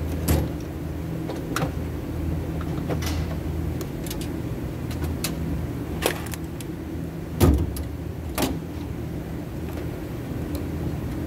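Small metal parts being handled on a workbench: a handful of short clicks and knocks, the loudest about seven seconds in, over a steady low hum.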